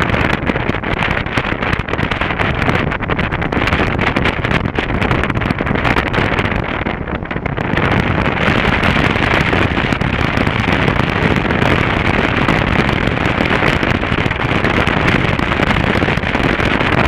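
Motorcycle ride heard from onboard: wind rushing over the microphone over the running engine, with rapid crackling throughout. The noise eases briefly about seven seconds in.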